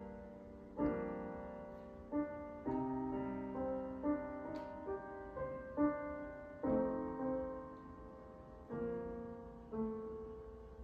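Piano played at an unhurried pace: chords and single notes are struck one after another, each left to ring and fade before the next.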